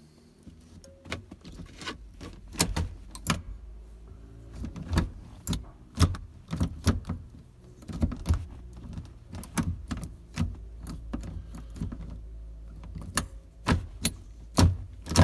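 A B&M shifter being worked by hand to test its repaired lockout T-handle. The lever and lockout latch give a series of irregular, sharp mechanical clicks and clunks as they are pulled and released.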